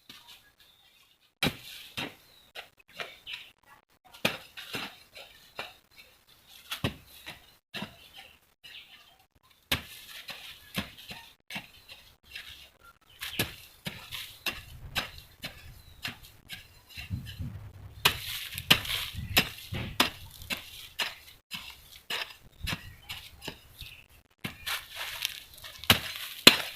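A metal garden hand tool striking and scraping into soil, working manure into the ground, in an irregular run of knocks about one or two a second, starting about a second and a half in.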